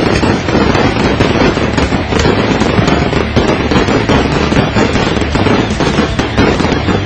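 Fireworks display: a dense, continuous barrage of shells and comets launching and bursting, the bangs and crackle overlapping without a break.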